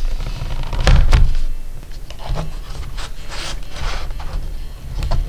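Plastic pry tool scraping and rubbing along the seam of a laptop's plastic bottom case as it is pried off, with a few sharp clicks about a second in and again near the end as the case's clips pop loose.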